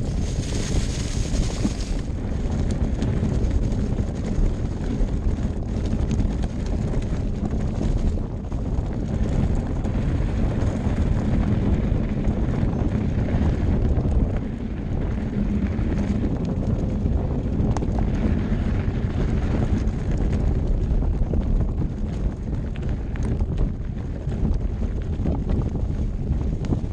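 Wind rumbling on the microphone over the rolling noise of a Santa Cruz Bronson mountain bike on a dirt trail, with small scattered knocks and rattles from the bike.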